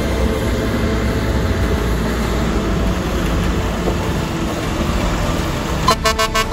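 Diesel semi truck's engine rumbling as it pulls slowly off the site. About a second before the end, its air horn sounds in a few quick toots.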